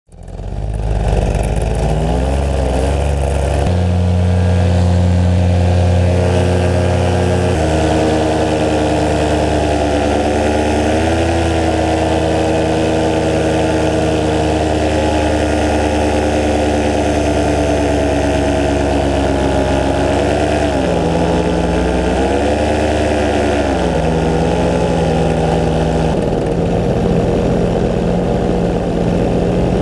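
Paramotor's two-stroke engine and propeller running in flight, its pitch stepping and wavering with throttle changes, about four and eight seconds in and again in the low twenties.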